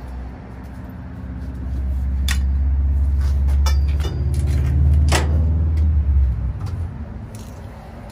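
A large engine runs close by, a deep low rumble that swells over a couple of seconds, holds, and fades away after about six seconds. Three sharp clicks sound over it.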